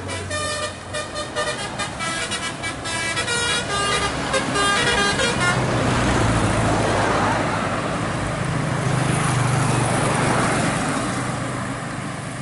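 An intercity bus's telolet basuri musical horn plays a quick tune of stepping tones for about the first five seconds. The bus then passes close by, its engine hum and the rush of its passing rising, then fading near the end.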